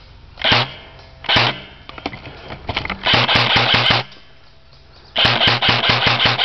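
Airsoft electric gun firing: two single shots in the first second and a half, then a full-auto burst of about ten shots a second around three seconds in, and another rapid burst starting near the end.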